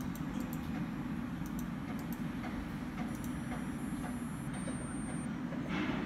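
Epson L385 inkjet printer running a head-cleaning cycle: a steady low whir with faint light ticks, and a brief louder rustle near the end.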